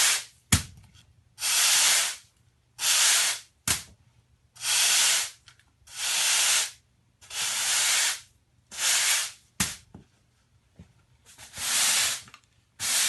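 Push broom bristles sweeping across a concrete floor in a series of short scraping strokes, each about a second long with brief pauses between them. A few sharp knocks fall between strokes.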